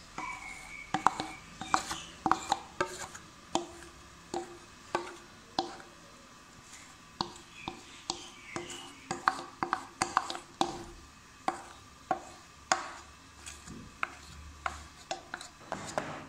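Irregular sharp clicks and taps of kitchen utensils against a metal bowl and cake tin, a few each second, while cake batter is poured into the tin and slivered nuts are dropped on top.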